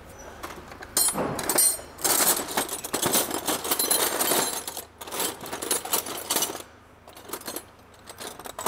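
Metal hand tools clinking and clattering in the drawers of a roller tool cabinet as they are rummaged through, a busy rattle that dies down near the end.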